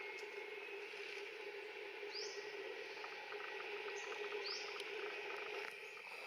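Outdoor forest ambience: a steady background hum with three short, high, rising chirps, the first about two seconds in and two more close together around four seconds in.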